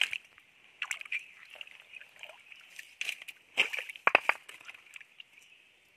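Hands splashing and sloshing in a shallow stream pool in irregular bursts, with a few quick loud splashes about four seconds in, over a steady high-pitched drone.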